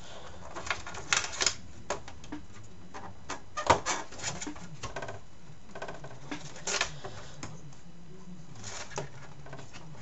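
Irregular metal clicks and taps as a sheet-metal motherboard I/O shield is pushed and snapped into the back of a computer case.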